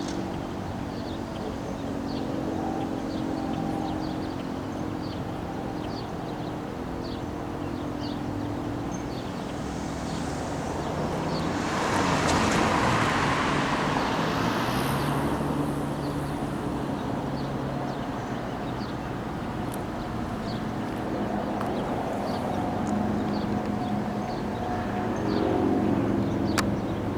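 Street traffic, with a car passing about halfway through, over faint low steady hums.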